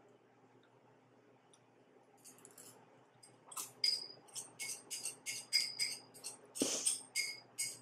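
Chopsticks clinking and tapping against a bowl while noodles are picked up and eaten: a quick run of light, ringing clicks, two or three a second, starting about two seconds in, with one louder knock near the end.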